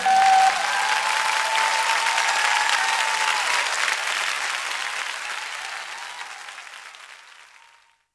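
Audience applauding after a brass sextet's final note, which cuts off right at the start; the clapping fades out steadily over the last few seconds.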